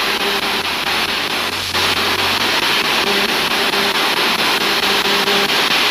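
Ghost-box radio sweeping through stations: loud, steady static hiss broken by short chopped fragments of radio tone and sound. The investigator takes the fragments for a spirit voice answering 'will they help you'.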